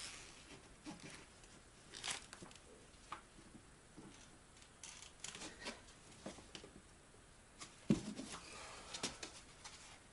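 Faint handling noises from setting up a homemade wooden jigsaw guide rail: scattered light clicks and knocks, with footsteps and one louder knock about eight seconds in. The jigsaw motor is not running.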